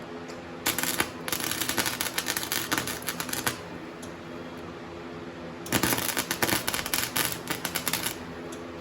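Harbor Freight Flux 125 flux-core welder's arc crackling in two bursts of about three and two and a half seconds. The welder's cooling fan hums steadily underneath.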